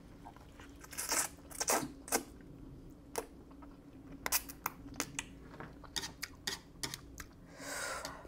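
Close-miked mouth sounds of eating spicy stir-fried instant noodles: slurping a mouthful, then wet chewing with a scattered run of short, sharp smacks and clicks. There is a longer breathy sound near the end.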